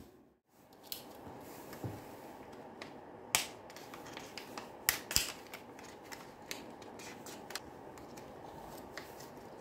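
Small scooter clutch parts and their plastic packaging being handled on a workbench: scattered sharp clicks and crinkles, the loudest a few seconds in. A steady low hum runs underneath.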